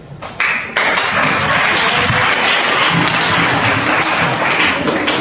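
An audience of schoolchildren applauding: the clapping starts abruptly about half a second in, holds steady and loud, then starts to die away near the end.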